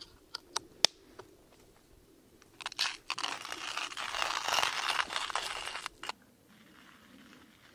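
A few sharp metal clicks as the crank handle is fitted onto a stainless-steel hand coffee grinder, then about three and a half seconds of crunching as beans are ground, stopping abruptly.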